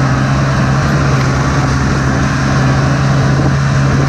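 Snowmobile engine running at a steady cruising speed, heard from on board while riding across snow-covered sea ice, with a constant low hum under the track and wind noise.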